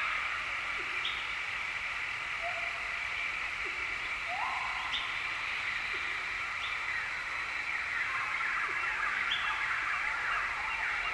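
Tropical forest ambience: a steady dense chorus of calling animals, with short high chirps every couple of seconds, a few low notes and two brief rising calls.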